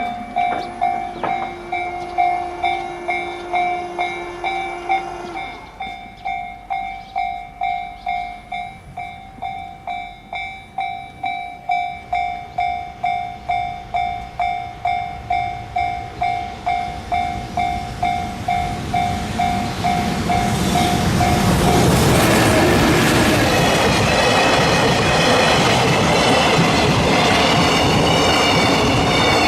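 Japanese level-crossing warning bell ringing in steady, evenly repeated dings. From about twenty seconds in, an oil freight train of tank wagons passes close by, and its loud rumble and wheel noise drown out the bell.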